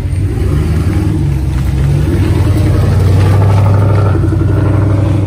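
GMC Sierra single-cab pickup's engine accelerating as the truck pulls away, growing louder to a peak about three seconds in.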